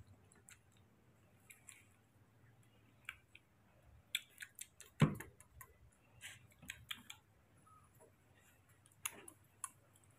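Scattered light taps, scuffs and clicks of a baby monkey scrambling over a man's shoulder and clothes and pawing at a wall, with one louder thump about five seconds in.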